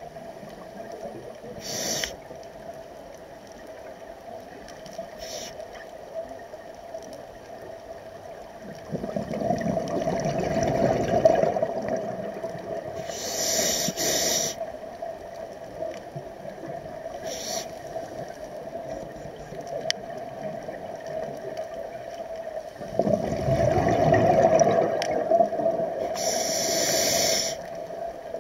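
Scuba regulator breathing heard underwater: twice a long, low rush of exhaled bubbles lasting a few seconds, and short hissing inhalations through the regulator between them and near the end.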